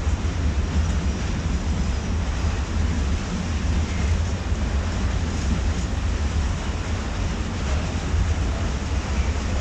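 Freight grain train of covered hopper wagons rolling past at a steady speed: a continuous low noise of wagon wheels running on the rails.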